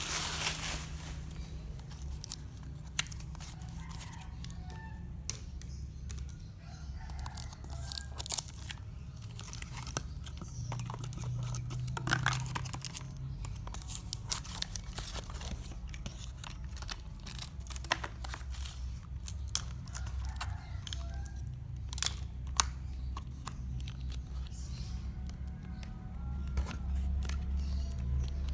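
A parcel being opened by hand: tearing of tape and packaging, with crinkling plastic and scattered irregular clicks and taps over a low steady hum.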